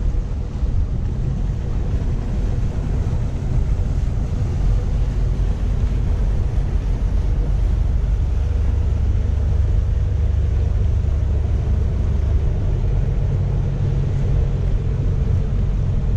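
Low, steady engine rumble of a cabin cruiser motoring past.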